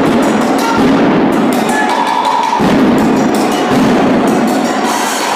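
Drill team's rhythmic percussion: loud, repeated sharp hits over steady crowd noise.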